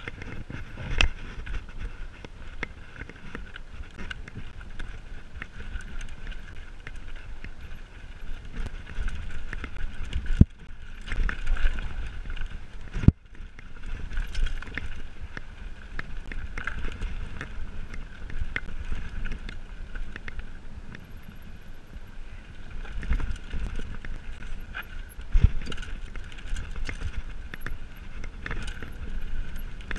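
Mountain bike descending a rocky dirt trail: tyres running over dirt and loose stones and the bike rattling, with sharp knocks about ten, thirteen and twenty-five seconds in, over low wind rumble on the microphone.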